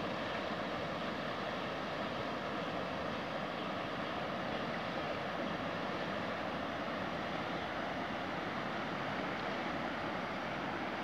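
Rushing of a river in flood: fast, swollen muddy water running past with a steady, even roar of noise.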